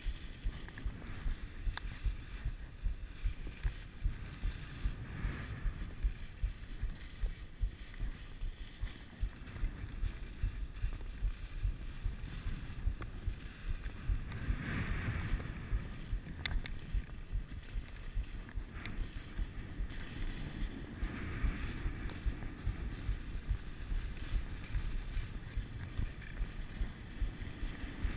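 Skis running over snow, with wind rushing on an action camera's microphone: a low, noisy rumble that pulses about twice a second and swells around the middle.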